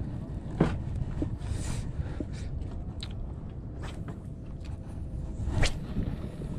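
Low steady rumble of wind and water around a small boat, with a handful of sharp clicks and knocks from handling the spinning rod and reel; the loudest knocks come about half a second in and near the end.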